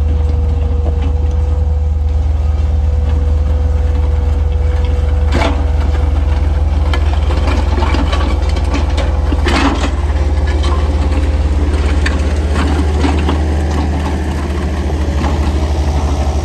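CAT 236B skid steer's diesel engine running steadily at work, with two sharp clanks about five and nine and a half seconds in and lighter rattling between them.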